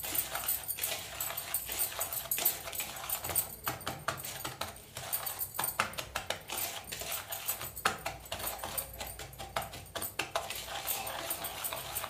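Metal spoon scraping and clicking against a plastic bowl while stirring dry crushed Oreo biscuit crumbs with baking powder, in quick, irregular strokes.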